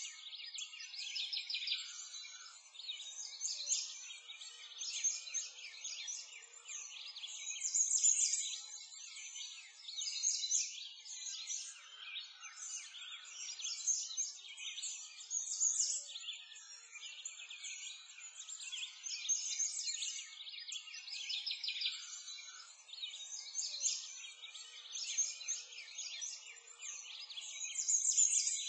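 A dense chorus of small songbirds chirping and twittering, high-pitched and rapid, swelling and fading every few seconds.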